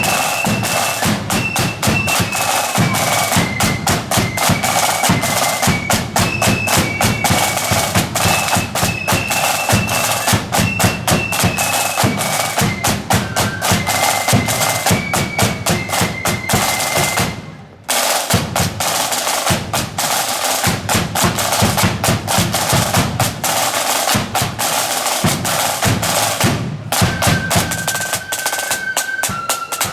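Marching flute band playing: snare and bass drums beating steadily under a high, shrill flute melody. The music breaks off for a moment about two thirds of the way through, then the drums and flutes come straight back in.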